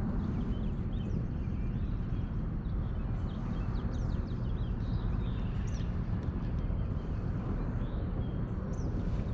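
Birds calling in short, repeated chirps over a steady low rumble.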